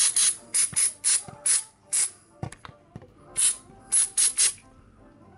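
Aerosol can of rust-inhibitor spray let off onto a lawn tractor's linkages in about a dozen short hissing spurts, in two runs with a pause in the middle. A couple of light knocks fall in the pause.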